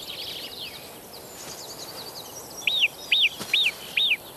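Small birds chirping, then an Alpine marmot's alarm whistles: four loud, clear calls about twice a second, each rising and then falling in pitch.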